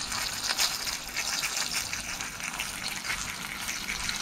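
Curry powder sizzling and crackling in hot oil in a pot: the curry being "burned" in the oil, the first stage of Jamaican curry goat before the meat goes in.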